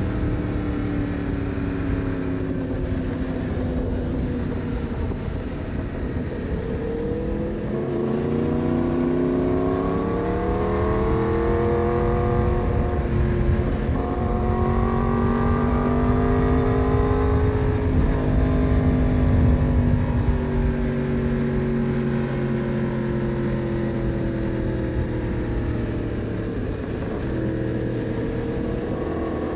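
Yamaha MT-10's crossplane inline-four engine heard from the rider's seat, its note falling away, then climbing and holding under throttle through the middle, and easing off again later on. Wind noise runs underneath.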